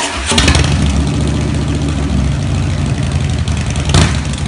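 A motorcycle engine idling, with a couple of brief louder throttle blips, one near the start and one about four seconds in.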